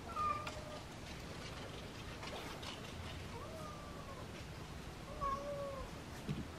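Domestic cat meowing three times, short calls spread a couple of seconds apart, the middle one rising then falling in pitch.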